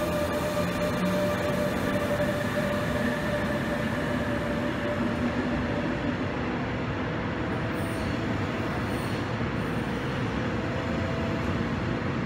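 DB class 146 electric locomotive and double-deck coaches rolling past a station platform: a steady rumble of wheels on rail. A faint whine fades out about a second in.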